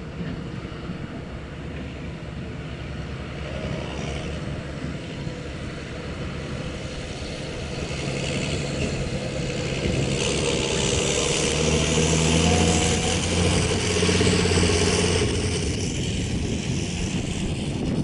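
John Deere 6820 tractor with a straight-pipe exhaust, its six-cylinder diesel running steadily under load as it pulls a trailer across a field. The engine grows louder in the second half, as the tractor comes closest, then eases off near the end.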